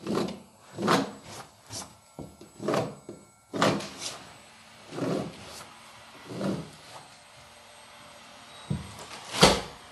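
Carpet being worked by hand into the edge at a sliding-door threshold: a series of short, dull thuds, about one a second at first, then further apart, with a sharper hit near the end.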